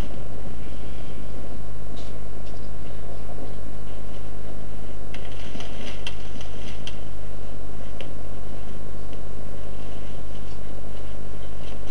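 Steady low electrical hum with hiss over it, with a few faint, brief higher sounds about two seconds in and again around five to seven seconds in.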